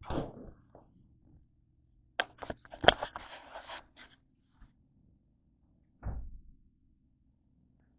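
Handling noises as a camera is carried about: clicks and knocks at the start, a loud clatter with rustling around three seconds in, and a dull thump about six seconds in.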